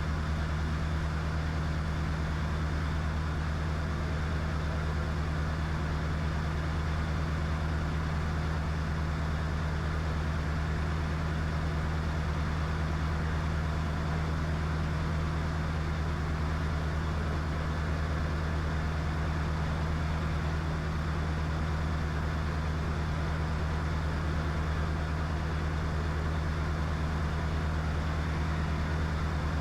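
Diamond DA20 light aircraft's engine and propeller droning steadily in level flight, heard in the cockpit, with no change in pitch.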